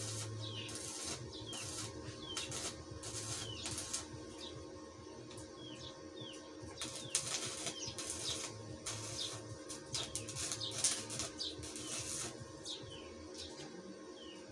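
Stick (arc) welding on steel tubing: the arc crackles and sizzles, with pauses between welds, over the steady hum of the welding machine.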